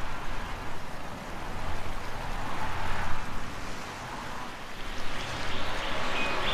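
Wind blowing in gusts that swell and fade every couple of seconds, over a low rumble.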